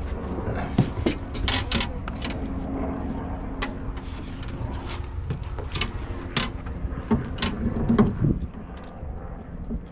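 Irregular knocks, clunks and clicks of handling gear in a small boat, over a steady low engine hum.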